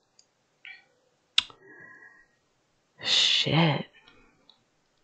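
A single sharp click or tap, followed by a faint short ringing tone lasting under a second.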